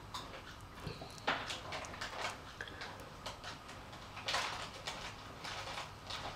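Wooden spatula scraping and pressing a moist minced-meat filling into a hollowed eggplant half on a plate: irregular soft scrapes and squishes, the firmest about a second in and again past the middle.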